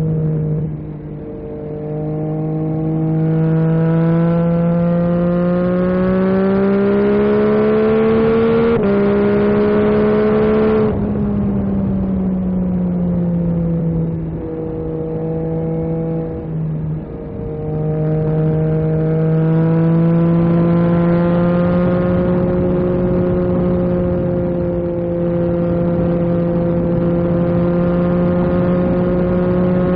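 Yamaha MT-09 SP's inline-three engine through an Akrapovic carbon exhaust, pulling up through the revs for about nine seconds with one brief drop in pitch partway, then easing off. After a couple of short dips it picks up again and settles into a steady cruise for the second half.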